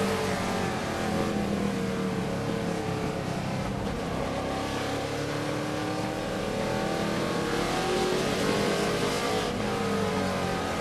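Race truck engine heard from inside the cockpit, lapping at speed. The engine note drops as the truck slows for a turn, then climbs again as it accelerates back up to speed.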